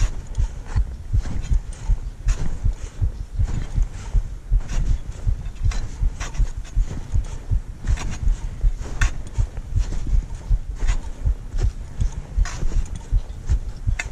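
A climber's footsteps during an uphill walk: a quick, even rhythm of low thuds with scattered crisp crunches between them.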